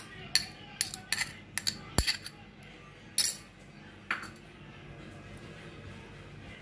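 Clinks and taps of a small glass bowl, and whatever is used to scrape it, against a stainless steel mixing bowl as ground spice paste is tipped onto raw chicken pieces. The sharp clinks come in a string over the first four seconds, with one louder clatter about three seconds in.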